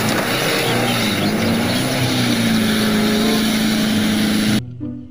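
Tanker truck engine labouring under load as the truck ploughs through deep mud, with a loud wash of churning, splashing mud. The engine note dips briefly, then rises and holds, and the sound cuts off abruptly shortly before the end.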